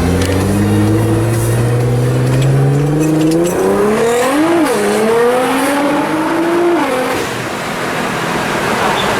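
Nissan GT-R's twin-turbo V6 with a titanium exhaust accelerating hard, heard from inside the car: the engine note climbs steadily, breaks once for a quick upshift about halfway, then climbs again and falls away as the throttle is released near the end.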